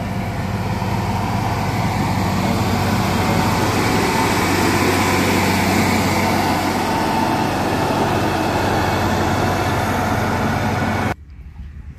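Motor grader's diesel engine running steadily under load as the machine drives along, blading and mixing a layer of granular subbase gravel. The sound cuts off abruptly near the end.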